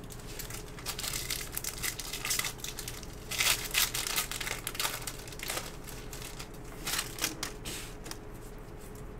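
Foil wrapper of a 2018 Topps Stadium Club baseball card pack crinkling and tearing as it is ripped open by hand, in a run of sharp rustles, loudest a little over three seconds in.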